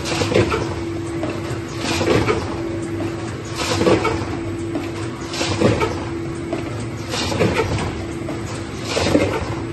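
Snack-tub filling line fed by a multihead weigher, running in a steady cycle: a short rush of noise about every second and three-quarters, six times, over a steady machine hum.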